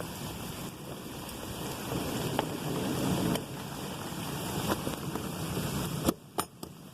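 Steady rain falling during a thunderstorm, with wind buffeting the microphone. A little after six seconds come a few sharp knocks and the sound drops off suddenly.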